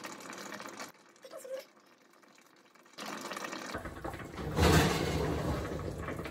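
Kitchen oven door being pulled open about four and a half seconds in, the loudest sound, over a steady rushing hiss that begins about halfway through; before it, a stretch of near quiet.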